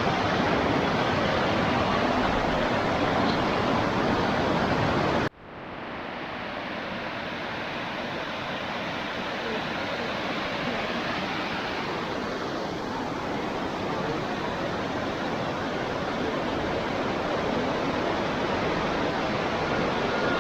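Steady rush of water from a waterfall. About five seconds in it cuts off sharply and comes back a little softer.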